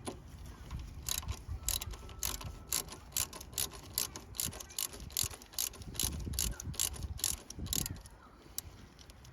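Ratchet socket wrench clicking steadily as a small fastener is turned, a quick run of sharp, even clicks, about three or four a second, that stops near the end.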